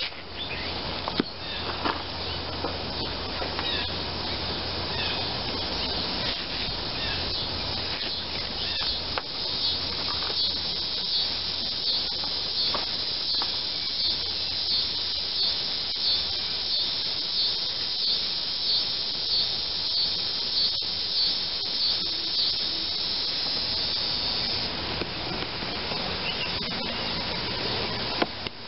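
Utility knife sawing through foam seat padding in repeated strokes, about one and a half strokes a second for much of the middle stretch, over a steady high hiss.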